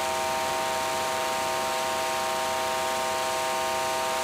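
Live electronic drone: a steady hiss of noise under a held cluster of several sustained tones.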